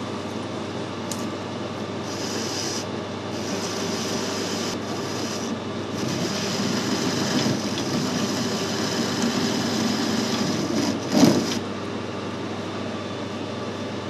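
Metal lathe running with the tool taking a cut, a steady cutting hiss joining the spindle noise about two seconds in. About eleven seconds in there is a short loud noise, and the cutting sound stops soon after: the corner has broken off the tool tip and it no longer cuts.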